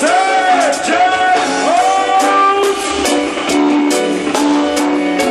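Live band music heard through a phone's microphone: guitar and a steady beat of sharp drum hits, with held notes that swoop up and down in arcs during the first couple of seconds. The bass is thin.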